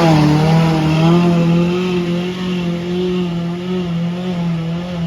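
Off-road vehicle's engine held at high revs under hard throttle, running steadily with a slight waver in pitch.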